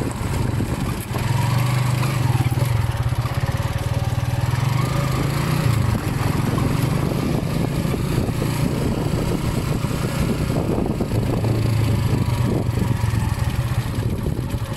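Motorcycle engine running steadily while riding, a low drone that eases a little about halfway through and picks up again later.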